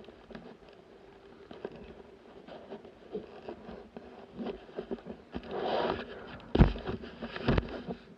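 Close handling noise from clothing and gear near the microphone: small clicks, scrapes and rustling that build to a louder rustle, then two heavy thumps about a second apart near the end.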